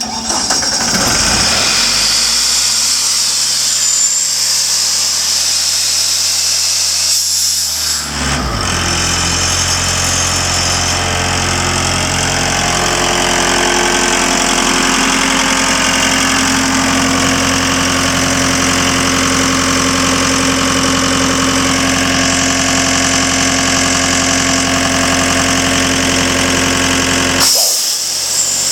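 John Deere 4024 diesel engine of an Atlas Copco 185 portable air compressor, starting up and running. About eight seconds in its note changes abruptly, and it then runs steadily until another brief change near the end.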